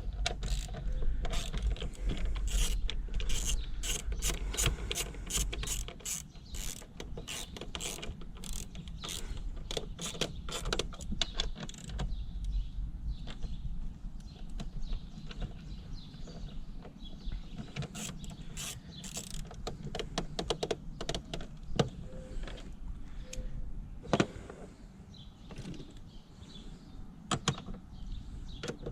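Hand ratchet wrench clicking in quick runs as nuts are loosened on a car's fuse block and its power cable terminal. The clicking is thickest through the first dozen seconds and sparser afterwards, with a few sharper metal knocks.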